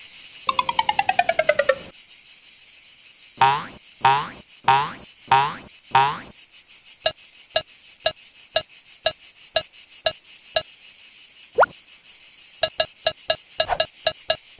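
Cartoon sound effects over a steady, high, cricket-like chirring. A falling glide comes first, then five quick falling sweeps, then a single more slowly spaced sweep among regular ticks at about two a second, which quicken to about four a second near the end.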